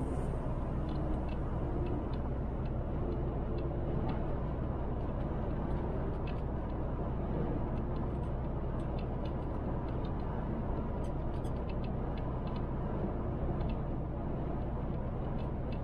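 Steady drone of a MAN TGX truck cruising on a motorway, heard inside the cab: an even engine hum under tyre and road noise, with a few faint ticks.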